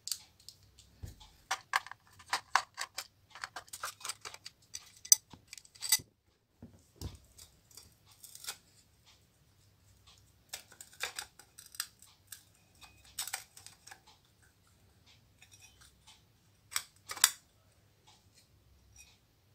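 Hand screwdriver backing screws out of a mini amplifier's aluminium case, then the case and its circuit board being handled and slid apart: bursts of small metallic clicks, ticks and scrapes with quiet gaps between them, the sharpest pair near the end.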